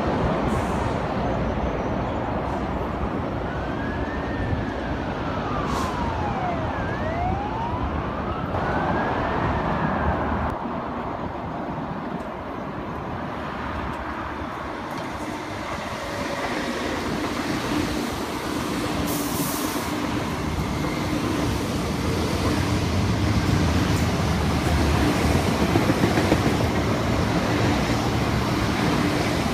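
Electric multiple-unit train running on the line, first with a whine that rises and falls in pitch twice. Then an MTR Metro Cammell MLR EMU passes close by, its wheel and motor noise building to its loudest near the end over a steady hum.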